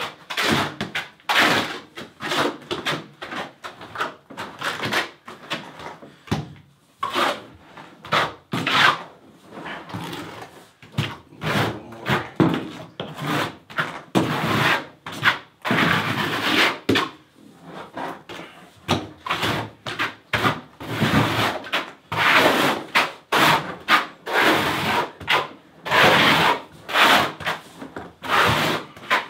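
Steel hand trowel scraping loose thin-set mortar across a plywood subfloor in repeated uneven strokes, working it in as a burn coat.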